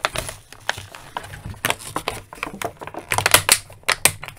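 A stiff clear plastic blister tray and cardboard card from action figure packaging being handled: irregular crackles, clicks and taps of the plastic, with a louder flurry a little past three seconds in.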